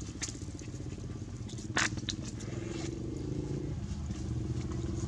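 A small engine running steadily with an even low pulse, growing slightly louder toward the end. Over it come scattered sharp crunching clicks from a macaque biting and chewing a fresh green vegetable, the loudest a little under two seconds in.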